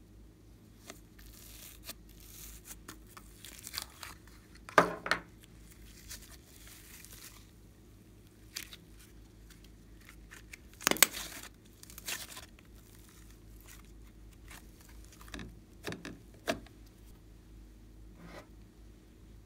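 Glossy yellow glitter slime being pulled out of its plastic tub and handled: sticky peeling sounds with scattered sharp pops and clicks, the loudest about five and eleven seconds in.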